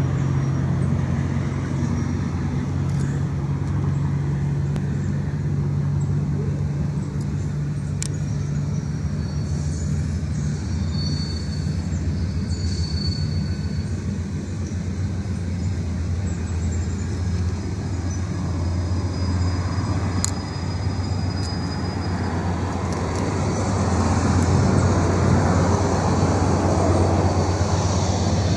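CSX diesel freight locomotive's engine running with a steady low drone as it moves slowly forward, growing louder in the last few seconds as it comes closer.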